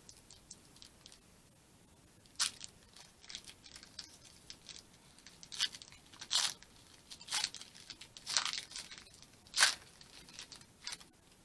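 Foil Pokémon booster pack wrapper crinkling and being torn open, in a series of short rips and crackles a second or so apart.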